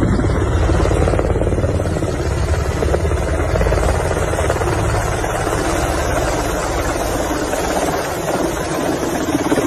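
UH-60 Black Hawk helicopter flying in low and close to hover over a rooftop, its rotor and twin turboshaft engines loud and steady.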